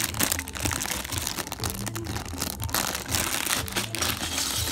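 Plastic bag of Lego pieces crinkling as the pieces are shaken out and tumble onto carpet, with many small clicks of plastic bricks knocking together.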